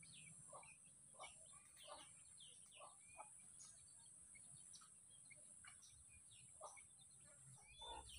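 Near silence with faint, scattered bird chirps.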